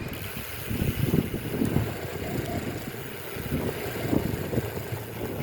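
Strong wind buffeting the microphone of a bicycle descending a hill at speed: an uneven, gusting low rumble with a steady hiss of rushing air above it.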